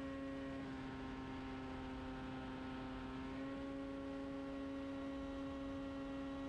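Formula 500 race car's roughly 500cc two-stroke snowmobile engine running at steady high revs, heard onboard as a steady high-pitched drone. Its pitch dips slightly about half a second in and climbs back a little after three seconds.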